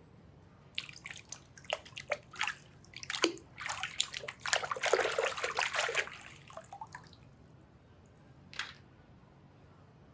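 Water sloshing and splashing as a toy vehicle is washed in water: a run of quick splashes, densest and loudest about four to six seconds in, then one more splash near the end.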